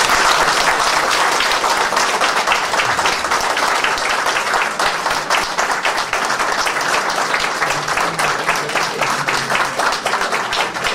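Audience applauding, a dense round of clapping that thins to more separate, distinct claps in the later seconds.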